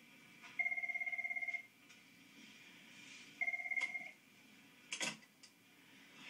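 Electronic telephone ringing twice with a fast warbling ring, the first ring about a second long and the second shorter, followed by a brief sharp click.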